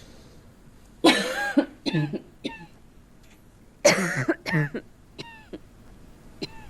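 A woman coughing in two fits, about a second in and about four seconds in, each a string of harsh coughs. It is acted as the persistent cough of pulmonary tuberculosis (consumption).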